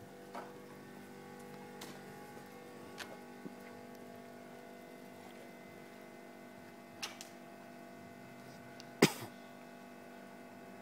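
A faint steady hum with a few light clicks, and one sharp knock about nine seconds in.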